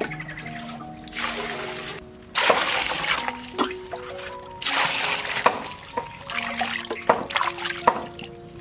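Water poured and splashing into a clay basin while a ripe papaya is washed by hand, in several bursts of a second or two, with sharper splashes near the end. Background music with a gentle melody plays throughout.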